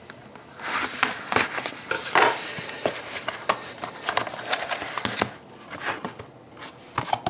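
Packaging rustling and crinkling by hand, with irregular light clicks and taps, as a trading card box is opened. It is busiest through the first five seconds, then quieter with a few clicks near the end.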